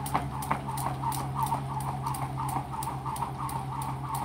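Jump rope turning and slapping the ground in a steady rhythm, about three and a half strokes a second, over a constant low hum.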